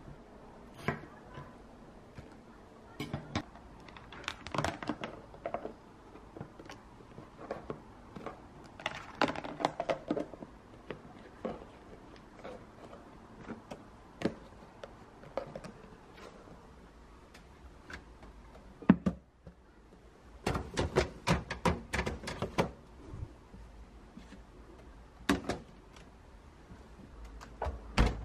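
Plastic food-storage container being handled: its lid and drainer basket click and knock, in scattered taps and a quick run of clicks about two-thirds of the way through.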